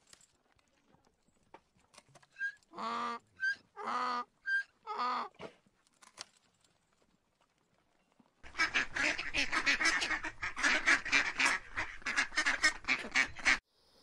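Donkey braying: a few hee-haw cycles, short high squeaks alternating with lower honks, from about 2.5 to 5 s. From about 8.5 s comes a louder, harsher run of rapid pulses that stops abruptly just before the end.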